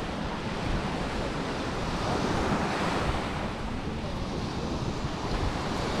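Surf washing onto a sandy beach in a steady wash that swells and eases, with wind on the microphone.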